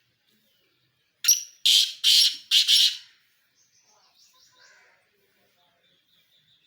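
A pheasant calling: a loud, harsh call of about four rasping notes in quick succession, starting about a second in and lasting under two seconds. Faint, quick chirping from smaller birds follows.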